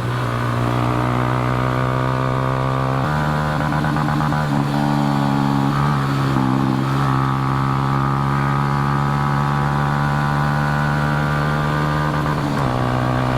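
Motorcycle engine running steadily on the move, its note stepping to a new pitch three times as the revs change.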